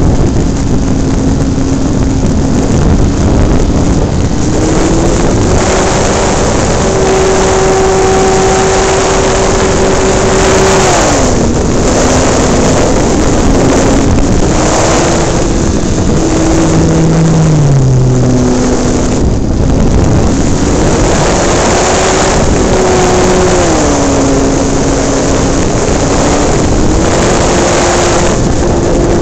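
Radio-controlled model airplane in flight, heard from on board: its motor runs steadily, its pitch stepping up and down several times as the throttle is changed, under loud wind noise on the microphone.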